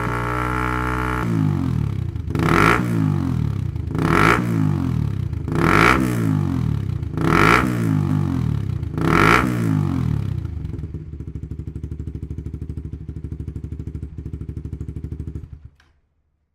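Suzuki GSX-R150's single-cylinder engine through a Yoshimura GP-Magnum full exhaust system, held at a steady high rev that drops about a second in, then blipped five times in a row, each rev rising and falling. It then settles to an even, pulsing idle and is switched off near the end.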